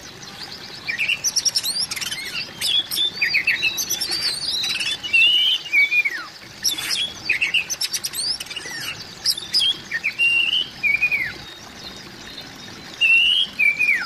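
Oriental magpie-robin singing: a varied run of short whistled phrases that slide up and down, one after another with brief pauses. There is a quieter gap of a second or so before a last loud phrase near the end.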